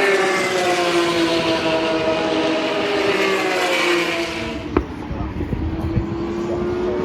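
Formula 3 cars' 3.4-litre Mecachrome V6 engines running at high revs, the engine note falling slowly over the first few seconds. About two-thirds of the way through there is a sharp click, then a lower rumble with an engine note that rises slowly near the end.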